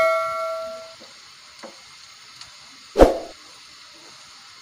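Sliced onions sizzling in hot ghee in a pan, a steady faint hiss. A metallic ring fades out in the first second, and about three seconds in the wooden spatula knocks once against the pan.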